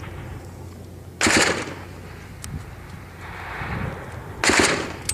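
Two loud reports of gunfire about three seconds apart, each a sharp crack with a short echo, during a firefight.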